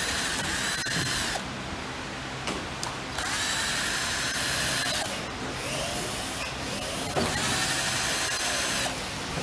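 Cordless electric screwdriver whining as it turns screws into an RC car's rear shock tower, in three runs of about two seconds each with short pauses between them.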